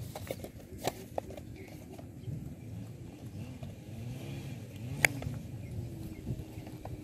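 An engine running in the background, its pitch rising and falling several times, with a few sharp clicks; the loudest click comes about five seconds in.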